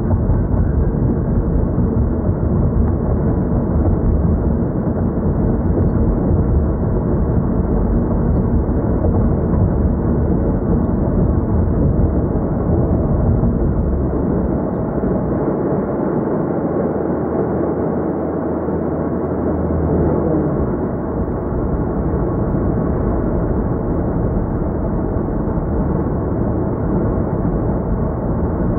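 A car driving at steady speed, heard from inside its cabin: continuous tyre, engine and wind noise, heaviest in a low rumble. A steadier low hum comes in for several seconds past the middle.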